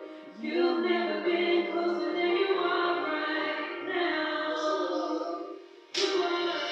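Background music: sustained, layered choir-like singing. It fades out briefly near the end and cuts in again abruptly with a click.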